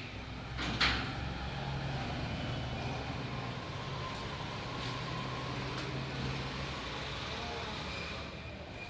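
Steady rumble of a moving vehicle with a low hum, and a single knock about a second in.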